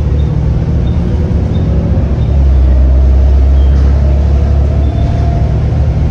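Volvo B7TL double-decker bus's six-cylinder diesel engine running with the bus under way, a loud low drone that eases off about half a second in and builds up strongly again past the two-second mark.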